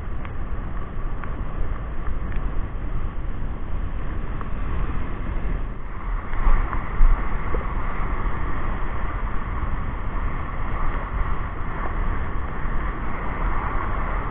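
Wind buffeting the microphone over the wash of small waves breaking on a rocky, pebbly shore. The surf's hiss grows louder about halfway through.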